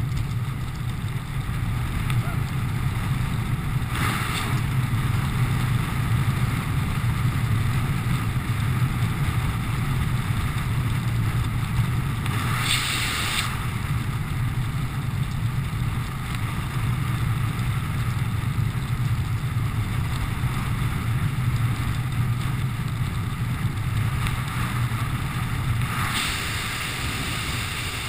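Wind rushing over a helmet-mounted camera's microphone under an open parachute, a steady low rumble with three brief hissing gusts.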